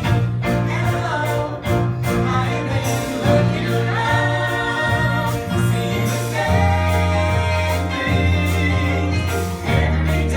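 Musical theatre song, sung over instrumental accompaniment with steady sustained bass notes.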